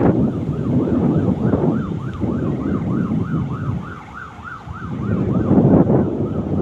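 Emergency vehicle siren in a fast yelp, its pitch rising and falling about three or four times a second before it fades out about five seconds in, over a loud low rumble of road traffic and wind on the microphone.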